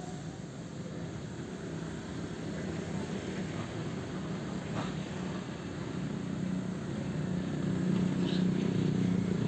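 Sumitomo hydraulic excavator's diesel engine running steadily while it works, growing louder over the last couple of seconds.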